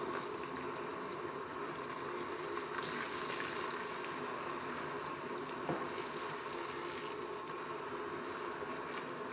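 Soapy water streaming and dripping from a sponge being squeezed by hand into a stainless steel sink drain, with a steady watery hiss and one light knock a little past halfway.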